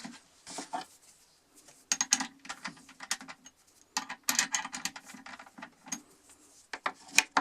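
Metal clicking and rattling in several bursts as a sanding-disc insert's shaft is fitted and tightened in a drill's chuck, with a sharp knock near the end.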